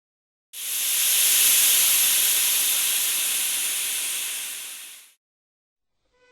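A loud, steady hiss of noise, strongest in the high end, that starts suddenly about half a second in and fades out about five seconds in.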